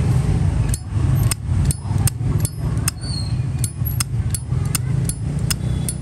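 Zippo lighter lid flicked open and snapped shut again and again, a crisp metallic click-clack about two to three times a second starting about a second in, over a steady low traffic rumble.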